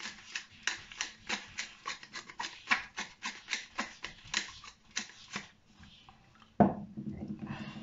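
Pepper mill grinding pepper over a bowl of salad: a fast run of clicks with each twist, stopping after about five and a half seconds. A single loud thump follows near the end.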